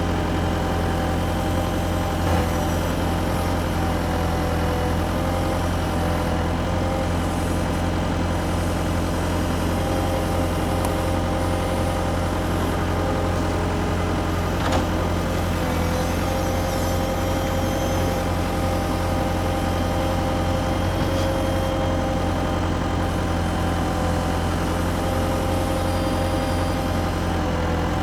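Radio-controlled toy excavators giving a steady, engine-like idling hum with a wavering motor whine, and an occasional faint click.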